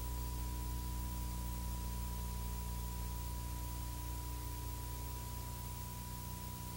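Steady hiss and low electrical hum of a blank stretch of old analog videotape, with a faint thin steady tone above the hum. The noise sags slightly in level toward the end.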